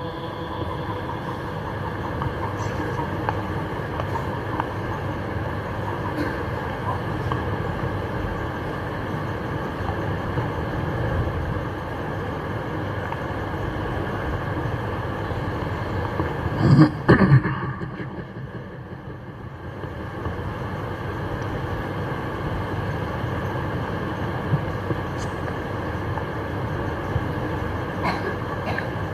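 Steady low background noise with no voices, broken about seventeen seconds in by two short, louder sounds close together.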